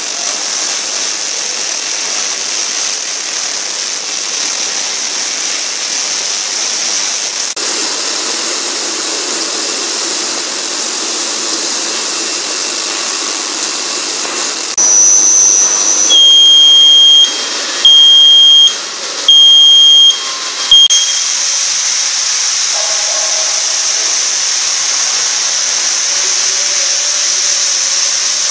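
Ultrasonic cleaning machine running with a steady hiss and a high whine. Halfway through, a short high beep is followed by the machine's buzzer sounding about four loud, evenly pitched beeps over some five seconds.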